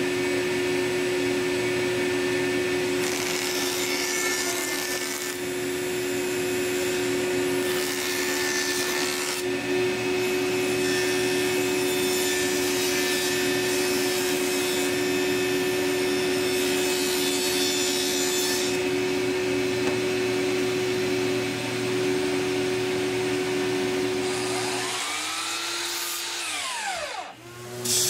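Table saw running steadily while a thin oak strip is ripped through it in several passes, the blade rasping through the wood each time. Near the end the saw is switched off and its pitch falls as the blade winds down.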